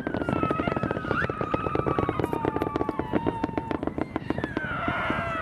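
Strobe rocket fireworks going off: a dense, rapid crackle of many small pops, with a high whistling tone that slides slowly down in pitch over several seconds.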